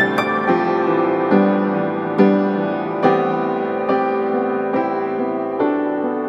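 Background piano music, slow and gentle, with a new chord roughly every second.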